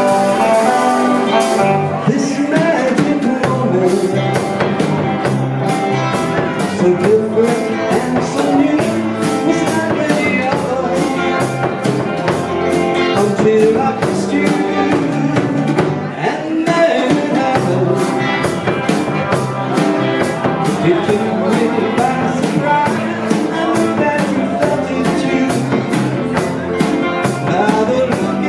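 Live band playing vintage rock and roll: drums keep a steady beat under a stepping bass line and guitar.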